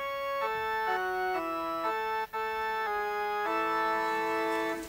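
Organ playing the introduction to a sung hymn verse: held chords that change about twice a second, with a brief break a little over two seconds in.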